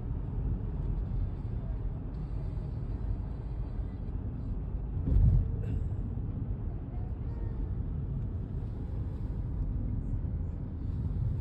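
Strong wind buffeting the microphone, a steady low rumble that rises and falls, with a stronger gust about five seconds in.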